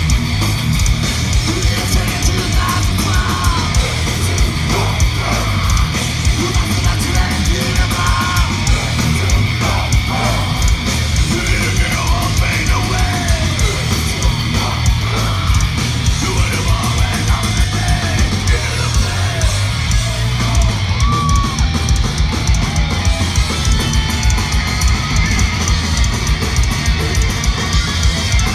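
Thrash metal band playing live at full volume: distorted electric guitars, bass and fast drums, heard from within the audience.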